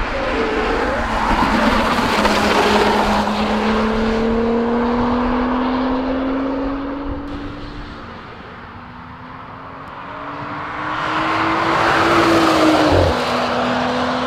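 Engine of a camouflaged Audi S5 Cabriolet prototype accelerating hard, its pitch rising steadily for several seconds. It fades for a moment, then climbs again and drops sharply with an upshift near the end.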